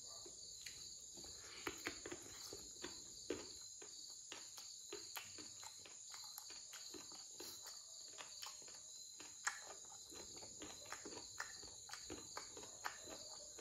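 Close-miked eating of pork ear: soft chewing and lip smacking, heard as a string of irregular small wet clicks and snaps.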